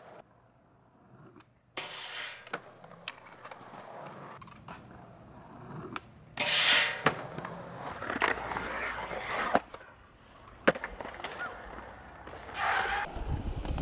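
Skateboard wheels rolling over concrete, broken by sharp clacks of the board popping and landing, several times over.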